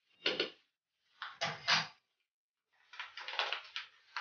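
Kitchen handling noises: short knocks and clatters of a metal spoon and a small spice container being handled at a plastic blender jar. They come in three brief bunches: one at the start, one around a second and a half in, and a longer rattling run about three seconds in.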